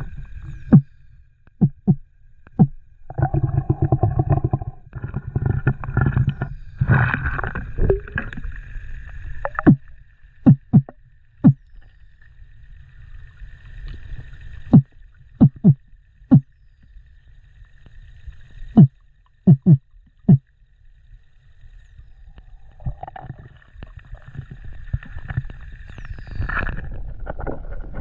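Underwater noise picked up by a spearfisher's submerged camera. A low rushing rumble of moving water comes in bursts, a dozen or more sharp clicks and knocks are scattered through it, several in quick pairs, and a faint steady high tone comes and goes.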